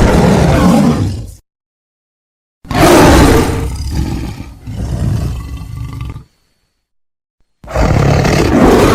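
Big-cat roars used as sabre-toothed cat (Smilodon) sound effects, played as three separate roars with dead silence between them. The first tails off about a second and a half in. The second lasts about three and a half seconds and fades unevenly. The third begins near the end.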